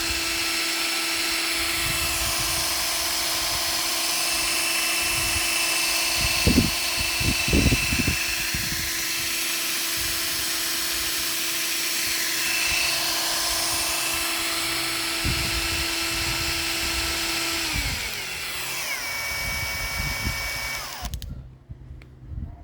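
Cordless drill motor driving a homemade outboard propeller, running at a steady whine. There are a few low knocks about a third of the way through. Near the end the pitch falls as the motor slows, and it cuts off.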